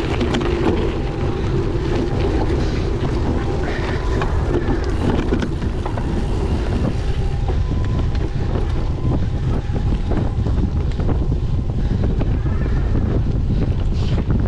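Strong wind buffeting the microphone: a steady, loud low rumble with no break.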